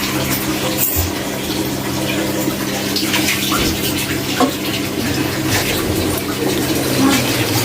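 Chicken curry sizzling and bubbling in a karai as the meat cooks down in its own juices and spices, with small crackles and a steady low hum underneath.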